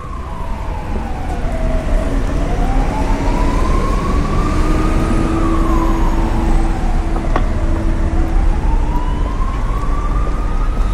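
Emergency vehicle siren wailing, its pitch sweeping slowly down and back up about every five to six seconds, over a steady low rumble of city traffic.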